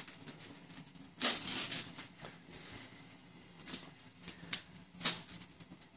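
Crinkling and rustling of a gift bow and wrapping paper being handled, in a few short bursts, the loudest about a second in and another near the end.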